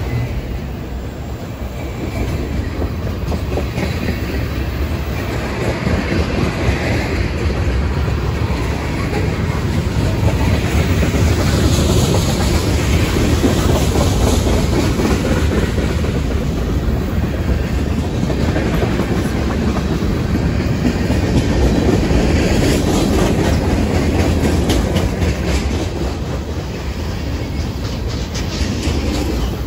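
Freight cars of a passing mixed freight train rolling by close up: a steady rumble of steel wheels on rail with clickety-clack over the joints, louder through the middle and easing off near the end.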